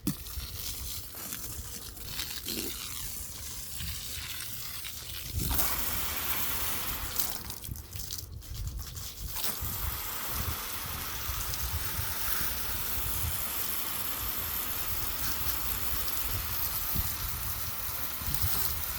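Steady hiss of water spraying, cutting out briefly about eight seconds in, with wind rumbling on the microphone.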